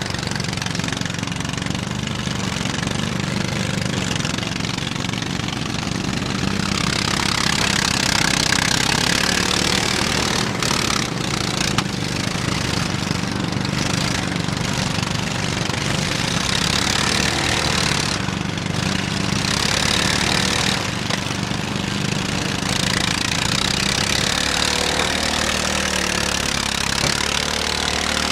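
Several riding lawn mower engines running at once, an overlapping steady drone, with a harsher, hissier rise in the noise from about seven seconds in until about twenty-three seconds.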